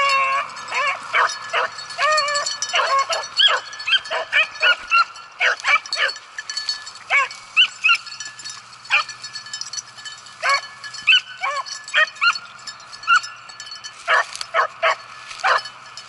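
Small pack of beagles baying while running a rabbit's track: short, repeated barks from several dogs at once, some drawn out and wavering in pitch, coming in bursts with brief lulls.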